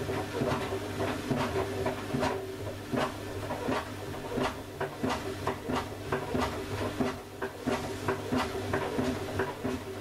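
Front-loading washing machine running with a steady motor and drum hum, while a Nokia 3310 knocks against the steel drum over and over, about two or three irregular hard clacks a second.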